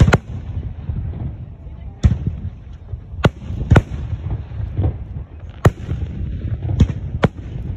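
Aerial fireworks bursting: about seven sharp bangs at irregular intervals over a continuous low rumble of more distant shells.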